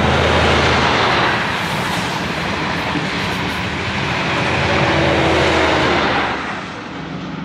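XPT diesel passenger train passing close by. The leading power car's engine and wheels are loudest at the start, then the carriages roll past. The trailing power car's engine swells again about five seconds in, and the sound drops away sharply after about six seconds.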